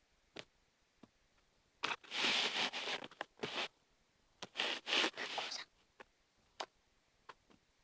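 Hands rummaging among plastic craft-supply containers: two scraping, rustling passages of about a second and a half each, with a few light clicks and taps between them.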